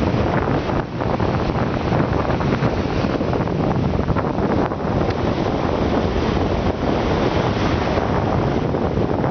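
Strong wind buffeting the microphone in a dense, steady rumble, with lake waves washing on the shore beneath it.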